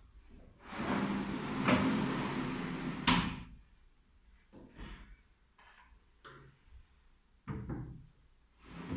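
A wooden extending dining table being pulled open on metal slide runners: a long rumbling slide of about three seconds with knocks, ending in a knock as it reaches full extension. Then a few lighter clunks as the folded leaf is lifted out and unfolded, and a thump near the end as the leaf is laid into place.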